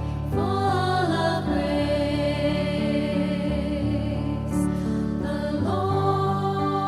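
Background music with sustained chords and wordless choral voices.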